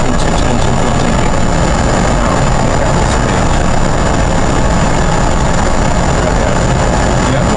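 Steady flight-deck noise of a Boeing 777: a constant rush of air and engine hum with a faint high steady whine, unchanging throughout.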